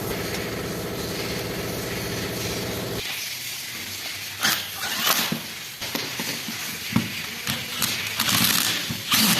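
A steady motor-driven tool hums for about three seconds and cuts off suddenly. Then come sharp metallic clicks and knocks from parts being handled, with several short hissing bursts like sprayed cleaner or compressed air.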